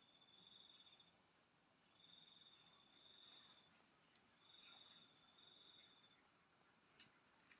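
Faint insect trilling: a high, even trill lasting about a second and a half, repeating every two seconds or so, over a steady high hiss. Two short clicks near the end.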